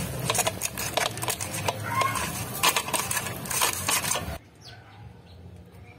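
Hands rubbing spice into pieces of raw catla fish head on a steel plate: quick clicks, knocks and wet slaps as the pieces are turned against the metal. It stops abruptly about four seconds in and goes quiet.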